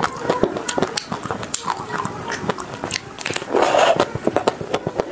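Close-up eating sounds of a chocolate-coated ice cream bar: the hard chocolate shell crackles and snaps in many sharp clicks as it is bitten and chewed. A louder, longer burst comes about three and a half seconds in.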